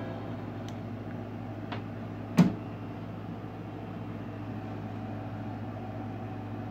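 Music from a small portable speaker cuts off right at the start, leaving a steady low hum. Light clicks follow, then one sharp knock about two and a half seconds in.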